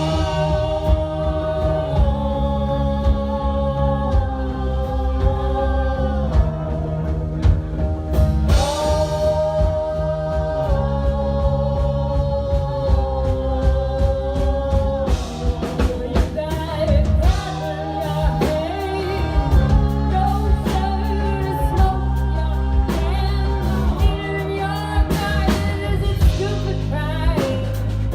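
Live song performance: long held sung notes over a band accompaniment with a steady beat.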